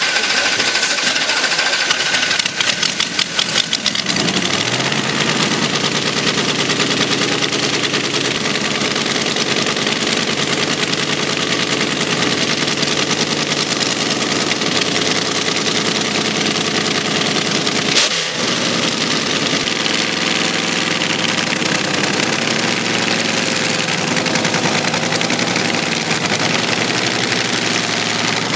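Twin-engine dragster's two nitro-burning engines, running on 75% nitromethane, being started: rough irregular firing for the first few seconds, then they catch about four seconds in and settle into a loud, steady, rapid-firing idle. A single sharp bang about eighteen seconds in, and the pitch wavers slightly later on.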